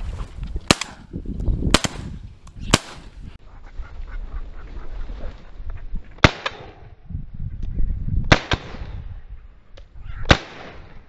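Shotgun shots at flushed game birds: six sharp reports, three in quick succession in the first three seconds, then three more about two seconds apart that ring out briefly. Wind rumbles on the microphone underneath.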